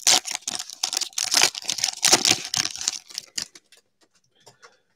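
Trading-card pack wrapper being torn open and crinkled, with cards rustling in the hands. It comes as a quick run of crackly bursts that stops about three and a half seconds in.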